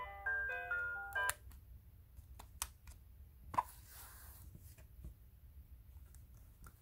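A plush toy bird's electronic music box plays the last notes of a tinkling melody, cutting off about a second in. Then come a few faint clicks and rustles as the toy and the plastic music unit in its zippered pouch are handled.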